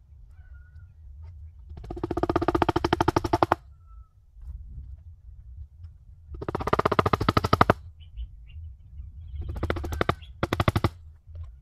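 Turkey gobbling: four rapid rattling calls, each about one to two seconds long, the last two close together, over a low steady hum.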